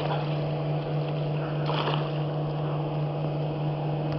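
Small boat engine running at a steady drone, one constant low pitch with overtones, with a brief noise about two seconds in.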